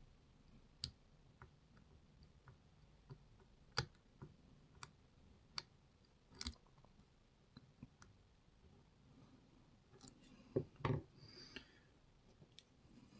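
Lock pick and tension tool working in a Lockwood MT5 lock: faint, scattered metallic clicks, with a louder cluster of clicks and scraping about ten to eleven seconds in.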